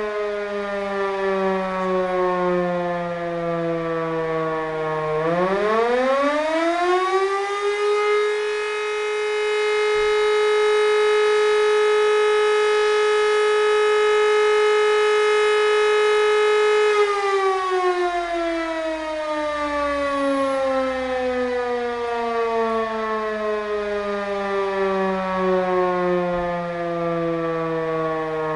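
E57 electromechanical rotor siren sounding the German fire alarm signal. Its pitch sinks as the rotor coasts down, then about five seconds in it spins up again to a steady tone held for about nine seconds. The power then cuts and the tone falls away slowly as the rotor winds down.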